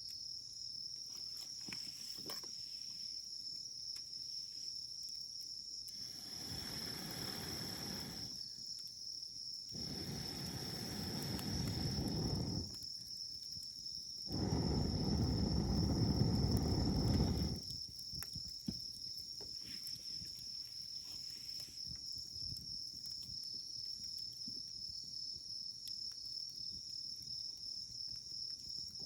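Wood campfire burning with faint scattered crackles and pops, under a steady high-pitched insect drone. Three spells of low rumbling noise swell and stop at about a quarter, a third and halfway through; the third is the loudest.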